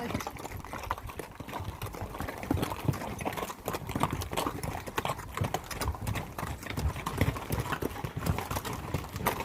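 Hooves of a string of pack mules clopping irregularly on a rocky dirt trail as the pack train files past.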